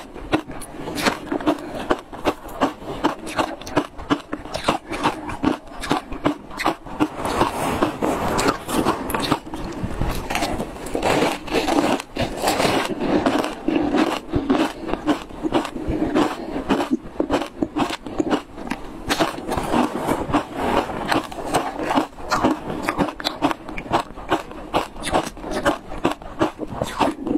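Ice chunks dusted with matcha powder being bitten and chewed, a steady run of crunches two or three a second.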